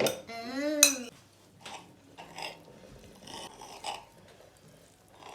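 A drawn-out vocal sound whose pitch rises then falls, in the first second. It is followed by a few faint, scattered taps of a kitchen knife chopping spinach on a chopping board.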